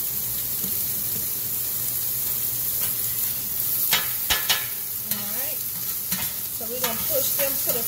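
Onions and bell peppers sizzling steadily in oil on a flat-top griddle pan, with a spatula stirring and turning them. Several sharp scrapes and knocks of the spatula on the pan come from about halfway through.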